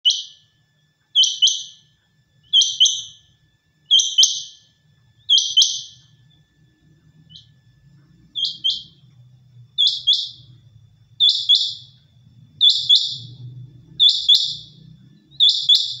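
Quail calling: a sharp two-note call repeated about every one and a half seconds, about a dozen times.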